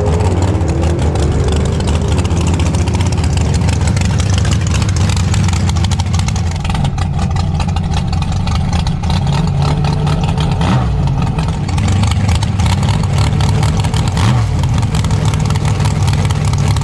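Rail dragster's engine idling loudly, a steady low rumble with slight changes in pitch.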